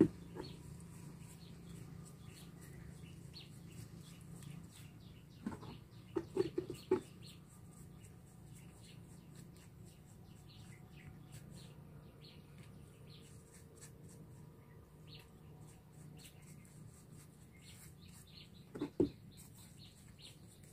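Chickens clucking, a few louder calls about six seconds in and again near the end, over small birds chirping and a steady low hum.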